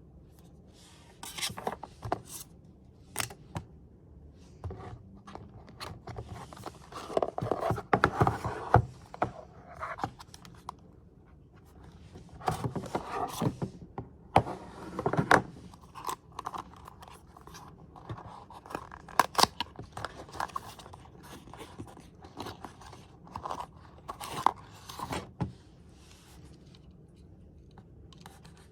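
Cube box and packaging being handled and opened by hand: scattered rustling, scraping and sharp clicks of cardboard and plastic, in denser bursts about a quarter of the way in and again near the middle.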